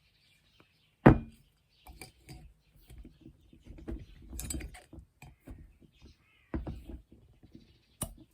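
A sharp bang about a second in, followed by irregular knocks and clattering, with further bangs later and near the end.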